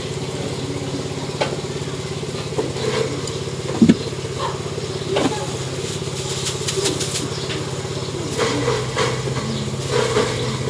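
A small engine running steadily close by, an even low hum that shifts slightly about eight seconds in. Over it come a few sharp knocks, the loudest about four seconds in, and a plastic bag crackling as spring onions are pulled out of it.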